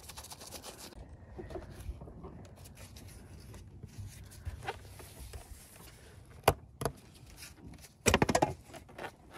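Scattered clicks and knocks of hand work on the car's door trim, with a sharp click about six and a half seconds in and a quick rattling run of clicks near the end.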